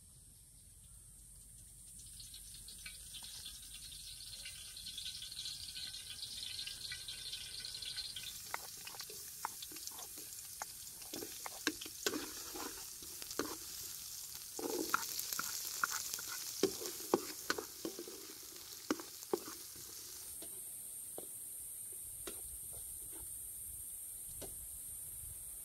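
Sliced shallots, garlic and red chilli sizzling in hot oil in a wok, with sharp clinks and scrapes of a spatula against the metal. The sizzle builds about two seconds in and grows louder about eight seconds in, with many clicks. It settles to a quieter, steady hiss for the last few seconds.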